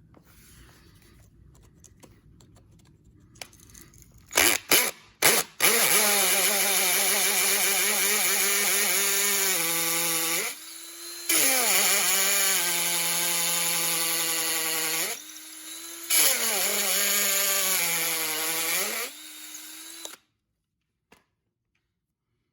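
Power drill with a 1/8-inch bit drilling a pilot hole through wooden tack strip into a concrete floor: a few short trigger blips, then the motor runs loud for about fourteen seconds, twice easing to a quieter, higher whine, and stops suddenly.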